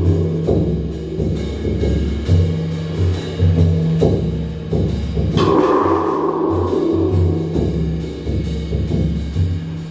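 Live percussion music: deep, pitched drum tones struck with a mallet in a repeating rhythm. About halfway through, a higher ringing tone from a small handheld instrument enters sharply and fades over about two seconds.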